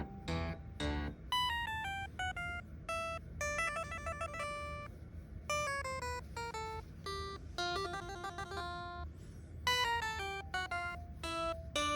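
Background music: a light melody of separate plucked, bell-like notes over a steady low accompaniment.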